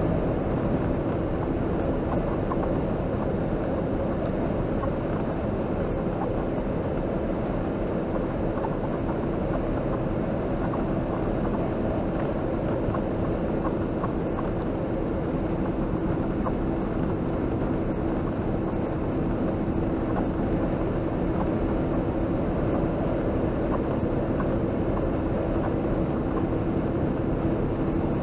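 A semi truck's engine and tyres droning steadily from inside the cab while it cruises down the road, with a constant low hum and no change in speed.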